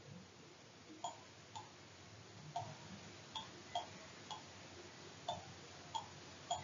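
Faint, irregular clicking, about one or two clicks a second, from a computer mouse being clicked while underlining syllables on screen.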